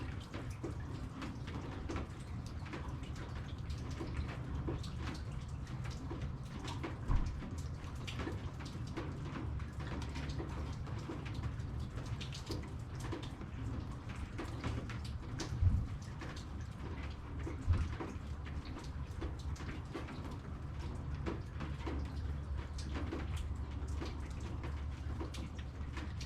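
Raindrops falling and dripping, many separate drops tapping at an irregular pace over a steady low rumble. Three louder knocks stand out, about a quarter, three-fifths and two-thirds of the way through.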